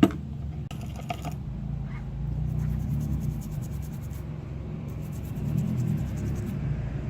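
Toothbrush scrubbing a circuit board with alcohol in quick back-and-forth strokes, in two spells, over a steady low hum. A sharp click at the start.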